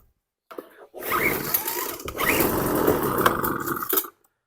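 Craftsman 25cc two-stroke leaf blower engine pull-started on full choke, catching about a second in and running at a fast, even buzz. The sound cuts off suddenly near the end.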